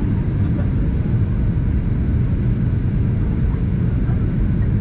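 Steady low rumble of a Boeing 737-800 in flight, its CFM56 jet engines and the rushing air heard from inside the passenger cabin, seated over the wing.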